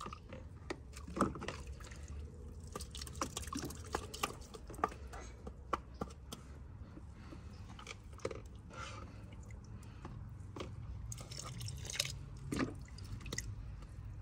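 Water dripping and splashing with irregular clicks and knocks of plastic toys and scoops in a plastic water sensory bin as small children play in it, over a low steady rumble.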